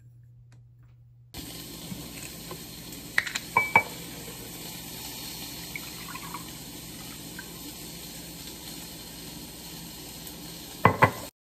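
Lemonade poured from a jug into a drinking glass, over a steady hiss that starts suddenly after the first second and a half. There are a few sharp clicks about three seconds in, one with a short ring, and a louder cluster of clicks near the end.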